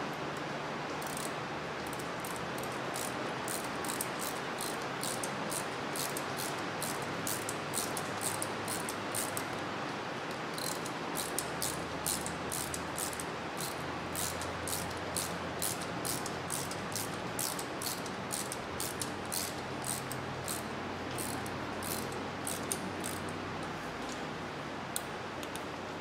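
Hand ratchet clicking in a steady run, a couple of clicks a second, as a new exhaust manifold stud is run down into a repaired bolt hole in the cylinder head to see if it bottoms out. Steady hiss underneath.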